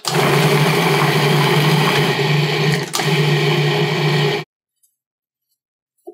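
Food processor motor running steadily as it purees roasted carrots and chickpeas into hummus, with a brief dip about three seconds in, then stopping abruptly.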